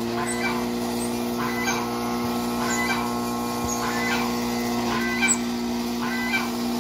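Forage chopper running with a steady hum while cassava is fed into it. Brief higher-pitched chirps recur about once a second over the hum.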